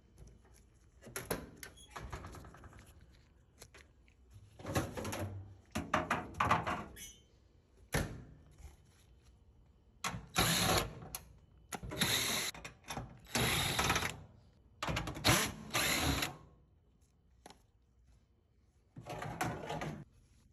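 Power drill-driver running in a series of short bursts, uneven gaps between them, as screws are backed out to open the dryer's cabinet.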